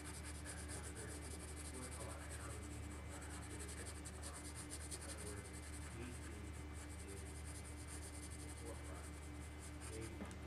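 Graphite pencil shading on paper: faint, quick back-and-forth scratching strokes, over a steady low electrical hum.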